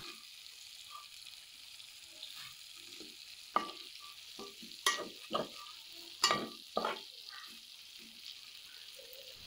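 A steel spatula scrapes and clicks against an aluminium kadai as pieces of brinjal in a thick chilli masala are turned over. Under it is a soft, steady sizzle of the frying. The sharp scrapes come in a cluster through the middle.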